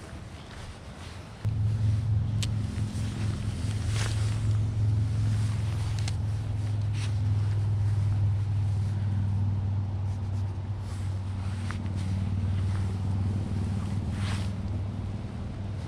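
A steady low engine drone that starts suddenly about a second and a half in and holds even, with a few faint clicks over it.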